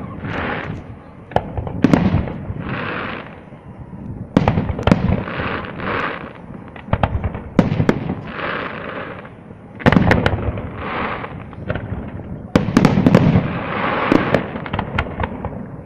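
Aerial fireworks shells bursting in quick succession: a sharp bang every second or two, each followed by about a second of crackling from the bursting stars.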